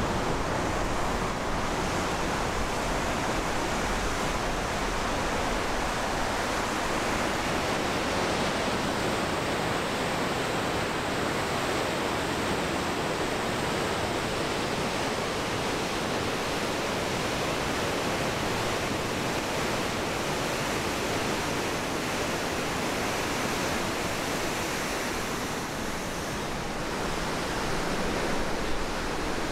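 Water pouring over a river weir, a steady, even rush of white water.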